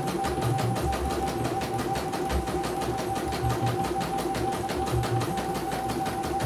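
CNY computerised embroidery machine stitching a design, its needle stroking in a rapid, even rhythm of about five strokes a second over a steady motor whine.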